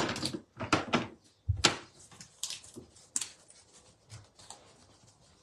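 Several sharp knocks and clatters of things being handled and moved about, as in rummaging through a drawer or cupboard. They are loudest in the first two seconds, then lighter ticks follow and die away.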